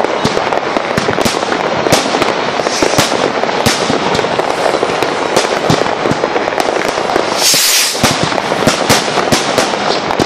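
Many fireworks going off at once: aerial bursts and firecrackers banging and crackling without a let-up, many sharp reports overlapping. A brief hiss comes about seven and a half seconds in.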